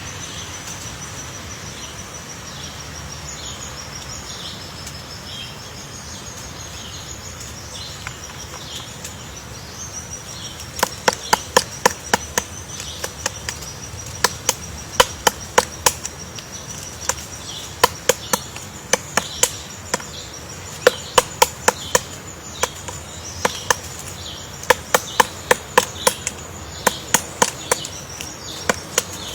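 Woodpecker pecking into wood: sharp, irregular taps a few per second in short runs, starting about eleven seconds in. A steady high-pitched trill continues in the background.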